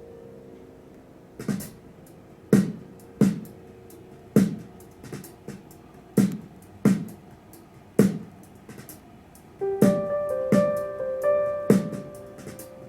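A slow pop song with no vocals yet: a held chord fades out, a drum beat starts about a second and a half in, and electric piano chords join near the end.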